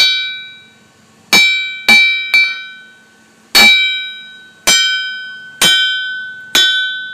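Hammer striking the face of a Peter Wright anvil about eight times, unevenly spaced, each blow leaving a clear, bell-like ring that dies away. The fantastic ring shows the partly weld-repaired anvil is still sound.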